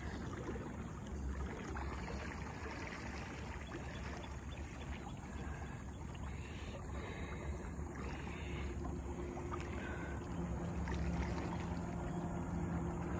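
Small aluminum john boat under way on calm water: a steady rush of water along the hull with wind rumble on the microphone. A low steady hum comes in about ten seconds in.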